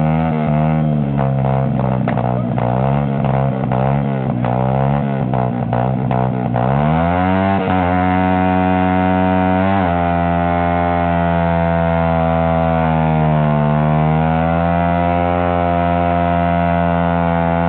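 Small dirt bike engine revved in quick repeated blips of the throttle, then held at high revs for about ten seconds with the pitch wavering, before dropping off near the end.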